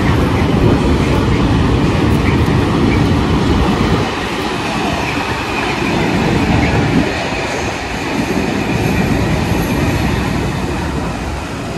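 Train running past on the rail line: a steady rumble, loudest in the first four seconds and then somewhat quieter.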